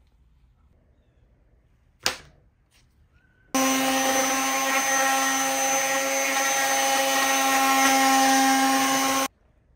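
Corded palm sander running steadily as it sands the cured epoxy surface of a resin-encased skateboard deck. It starts abruptly about a third of the way in and cuts off suddenly near the end. A single sharp click comes a little before it.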